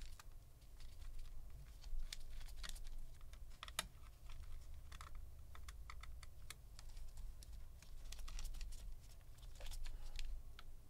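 Scattered light clicks and taps of a precision screwdriver and small screws being fitted into an open MacBook Pro's chassis, with the sharpest click a little before the middle, over a low steady hum.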